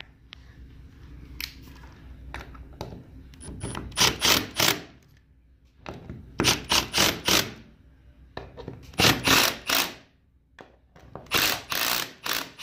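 Milwaukee Fuel brushless cordless driver tightening the bolts of a steel door-operator mounting plate into a wood door, running in four short bursts of about a second each, a few seconds apart.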